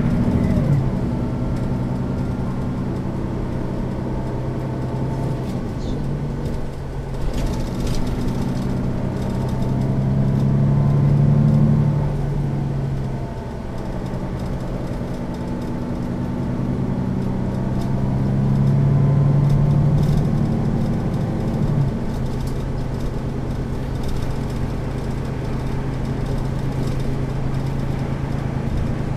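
Setra S 415 NF city bus's diesel engine idling at a standstill, steady, swelling twice to a slightly higher, louder run, around ten and nineteen seconds in, before settling back to idle.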